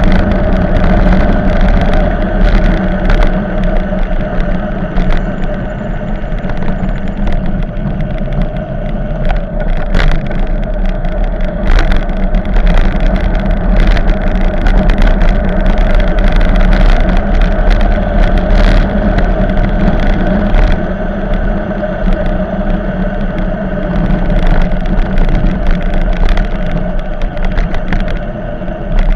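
Wind buffeting the microphone on a fast downhill bicycle ride, with a steady rushing roar of wind and tyres and several sharp knocks and rattles from bumps in the road.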